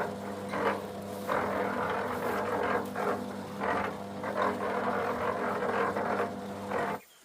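An engine running steadily with a low hum and an uneven rushing noise over it, cutting off suddenly near the end.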